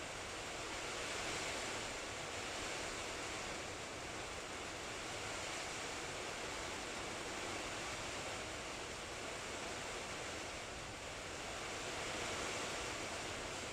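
Heavy rain pouring down in a steady, even hiss, swelling slightly about a second in and again near the end.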